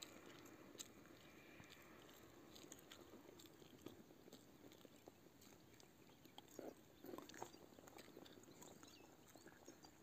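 Near silence: faint outdoor background with scattered small ticks and rustles, and a couple of slightly louder soft knocks a little after the middle.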